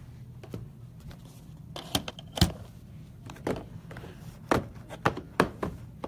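Knocks and clacks of hard trading-card boxes being set down and handled on a table: about eight sharp knocks, the loudest about two and a half seconds in and several close together near the end.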